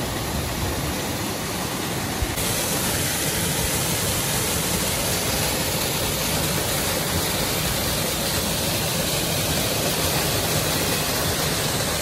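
Small waterfall rushing steadily down a rocky channel, a constant loud hiss of falling water.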